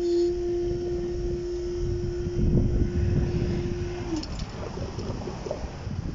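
Level-crossing barrier mechanism humming in one steady tone as the barrier booms rise, stopping about four seconds in once they are up, with wind rumbling on the microphone.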